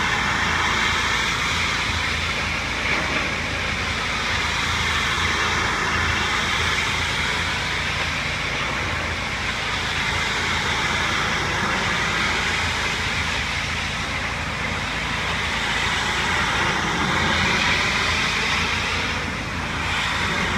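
Pressure washer running steadily: the motor's low hum under the loud hiss of the high-pressure spray hitting house siding, its tone shifting slowly as the spray moves.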